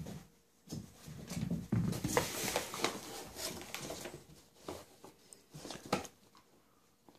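Bracco Italiano puppy scuffling and playing with a cardboard box and a ball: irregular rustling, scraping and light knocks, busiest in the first half, with a sharper knock near the end.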